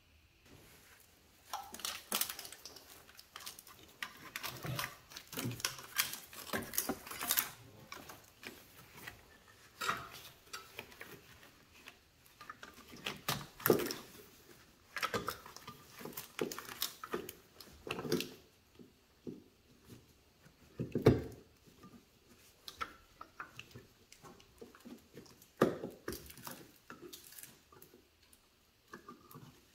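Hands working in an engine bay, reconnecting a wiring harness's plastic electrical connectors to the fuel injectors and sensors of a Jeep 3.8L V6. The sound is irregular clicks, taps and rustling, with a few sharper knocks.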